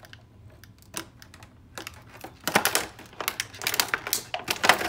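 Scissors cutting through a clear plastic toy-packaging tray, the plastic crackling and clicking. A few scattered clicks at first, then a dense run of crackles and snips from about halfway through.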